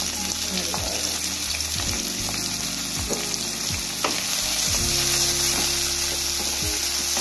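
Sliced onions sizzling in a little hot oil in an aluminium karahi, stirred with a wooden spatula that scrapes and taps against the pan now and then.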